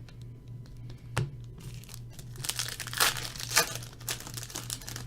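Plastic wrapper of a trading-card pack crinkling as it is handled and torn open, with a sharp click about a second in and a denser spell of crinkling from about two and a half to four seconds in. A steady low electrical hum runs underneath.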